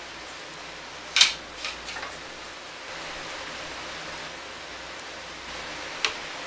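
Ridgid table saw's belt-drive motor assembly being worked into place on its mount: one loud sharp clack about a second in, a few lighter knocks just after, and another sharp clack near the end, over a steady hiss.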